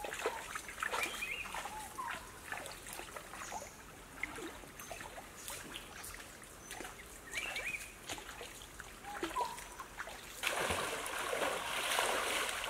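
Shallow stream trickling over rocks, with scattered small plinks and bubbling chirps. About ten seconds in, much louder, continuous splashing water takes over.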